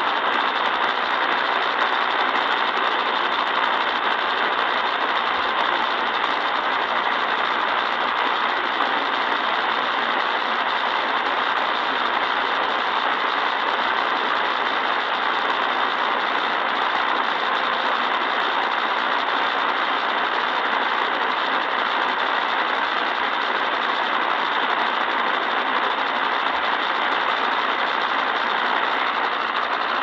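Steady hiss of static from a portable Eton radio's speaker, with no programme audio on the channel.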